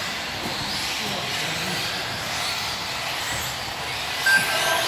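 Several 1/10-scale electric RC buggies racing, their electric motors whining up and down in pitch as they speed up and slow down over the carpet track, in a large hall. A short electronic beep near the end.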